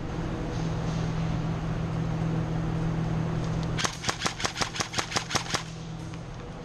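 A steady low hum, then about two-thirds of the way in a rapid string of about a dozen sharp airsoft gun shots, about seven a second, lasting under two seconds.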